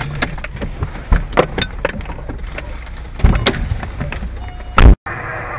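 Irregular sharp pops and cracks from a fire burning on the road ahead, over a steady low engine hum from inside the car. Near the end comes a short, much louder burst, and then the sound cuts off abruptly.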